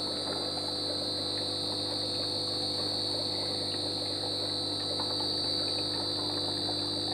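Crickets trilling steadily in one unbroken high-pitched note, over a low steady electrical hum.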